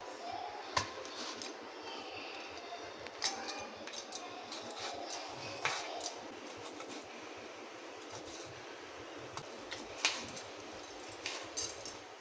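Kitchen utensils clinking and knocking against a bowl, in scattered sharp strikes, the clearest about a second in, at three and six seconds and near ten seconds.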